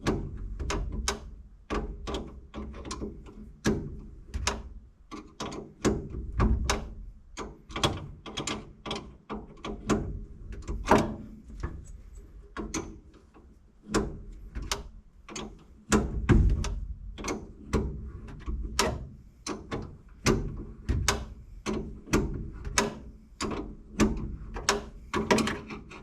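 Hand ratchet wrench working a stubborn seatbelt anchor bolt, clicking in short irregular strokes about two or three times a second, with dull metal thunks mixed in.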